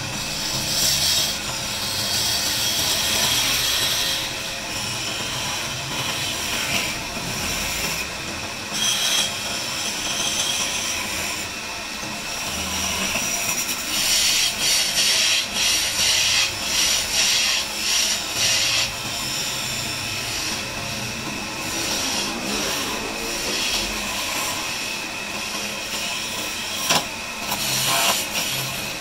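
Wood lathe running while a hand-held turning chisel cuts into a spinning wooden table leg, scraping off shavings in repeated spells of louder cutting, the longest about halfway through. A single sharp tick near the end.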